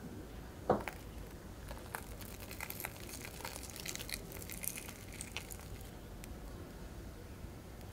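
Crisp fried breadcrumb crust of a mozzarella corn dog crackling as fingers squeeze it and tear it apart, with a light knock about a second in. The crackling is densest in the middle.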